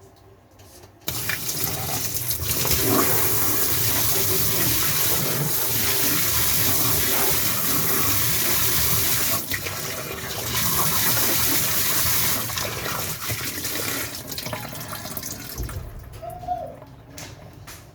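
Water running or pouring steadily; it starts suddenly about a second in and thins out near the end.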